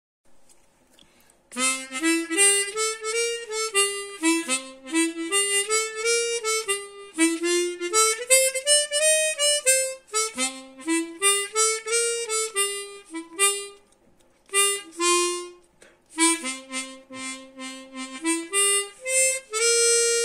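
Harmonica played solo: a melody of short notes in rising and falling phrases, starting about a second and a half in, with two brief breaks in the second half and a long held note at the end.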